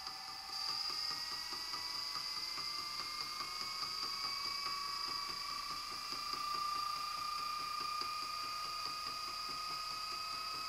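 The walking cube robot's electric motor running steadily on a bench power supply: a steady high whine, fast even ticking from the mechanism, and a few tones that rise slowly in pitch.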